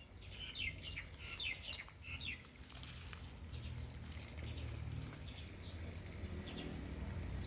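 Small birds chirping: a quick run of about six short, high chirps, each falling in pitch, then two more near the end, over a faint low steady hum.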